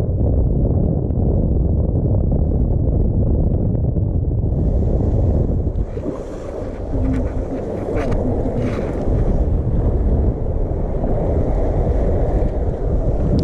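Wind buffeting the microphone in a steady low rumble, with a few light clicks about halfway through.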